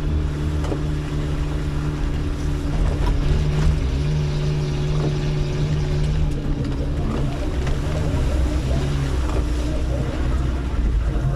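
Off-road 4x4's engine running at steady low revs, with a few short knocks and rattles from the vehicle.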